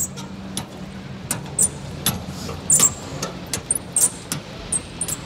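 Steady low hum with scattered sharp clicks and light metallic clinks.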